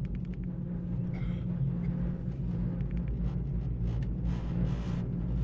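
Steady low hum and rumble of a ropeway cabin travelling on its cable, with a quick run of light clicks just after the start and a short hiss near the end.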